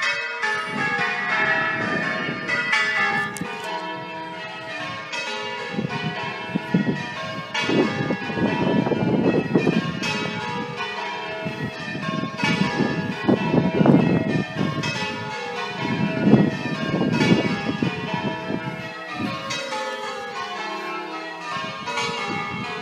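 A ring of church bells being rung in change ringing: strokes follow one another in a steady, unbroken stream, in rows stepping down in pitch from the lightest bell to the heavy tenor.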